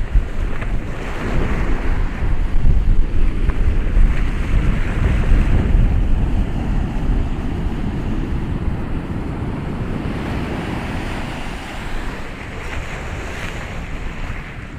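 Ocean waves breaking and washing ashore, a deep surging rush of surf that swells in the first half and slowly eases off.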